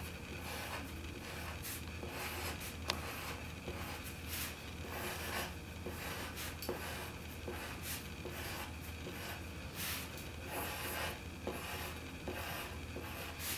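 Pencil drawing on paper: a continuous run of short, scratchy strokes at an irregular pace as a sketch is drawn.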